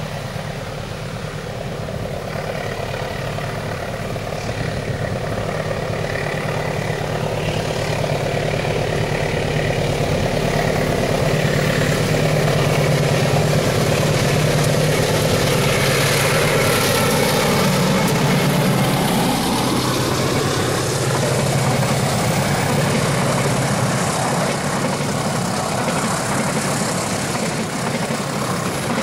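Diesel-electric passenger locomotive approaching and passing, its engine drone growing steadily louder and dropping in pitch as it goes by, followed by the coaches rolling past on the rails.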